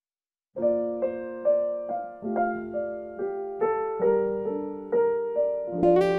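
Instrumental intro of a slow song on a piano-like keyboard: after a moment of silence, notes and chords start about half a second in, a new one struck roughly every half second and left to fade. A brighter, fuller chord comes in near the end.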